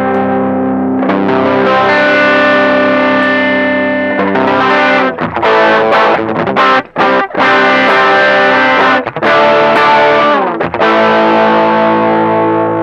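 Electric guitar played through a TC Electronic Dark Matter distortion pedal, switched on: distorted chords, held and left to ring, with a run of short choppy strums in the middle. The last chord rings on and fades near the end.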